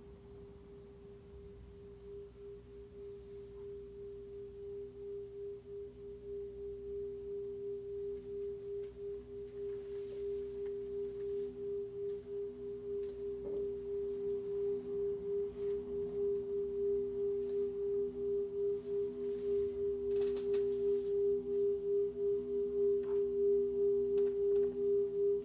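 Large ride cymbal sounding a sustained ringing drone, worked through a looper: two steady tones with a slight pulsing that grow steadily louder.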